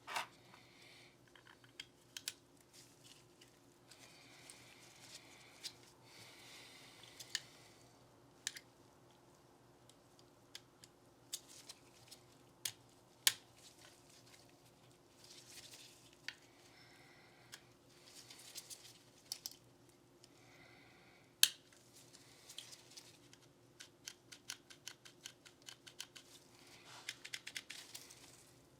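Small sharp clicks and taps of pistol parts and tools being handled on a bench, with a few short brushing or wiping sounds and a quick run of light clicks near the end, over a faint steady hum.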